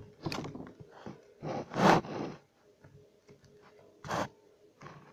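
Fingers poking and squishing a lump of homemade slime, making a few short, noisy squishing sounds, the longest and loudest about two seconds in and another about four seconds in.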